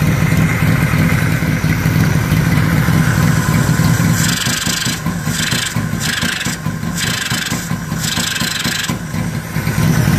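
Yamaha XS650 air-cooled parallel-twin engine, fitted with a 'wise guy' carburettor setup, idling steadily. From about four seconds in, a rasping noise comes and goes in short bursts over it.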